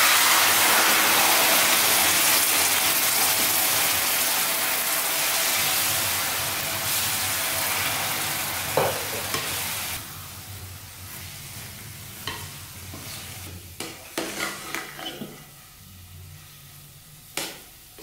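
Sugar syrup hitting hot, roasted moong dal halwa mix in a steel pan: a loud sizzling hiss that starts suddenly and dies down after about ten seconds. After that comes the scraping and tapping of a flat steel spatula stirring the wet halwa around the pan.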